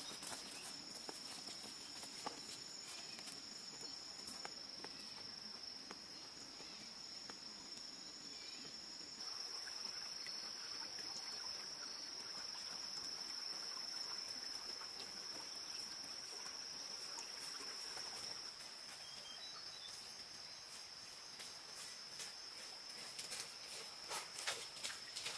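A steady, high-pitched insect chorus drones without a break. Near the end come a few footsteps on dry leaf litter.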